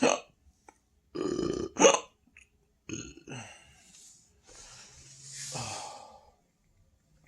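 A person belching over and over from an overfull stomach: a short belch at the start, a longer one about a second in followed at once by the loudest, a short sharp one, then smaller belches around three seconds and a long drawn-out one from about four and a half to six seconds.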